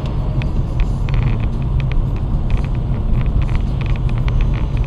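Car driving, heard from inside the cabin: a steady low engine and road rumble, with scattered light ticks and rattles.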